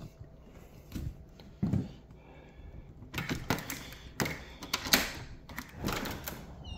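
A few dull knocks, then from about three seconds in a busy run of clicks, taps and rustles, the noise of things being handled and moved about.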